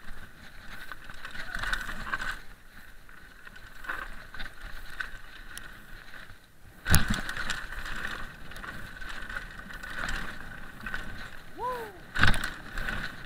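Mountain bike rolling fast down a rough dirt forest trail: tyres on loose gravel and the bike rattling, with a sharp hard knock about seven seconds in and another near the end as it hits bumps. A short falling squeal comes just before the last knock.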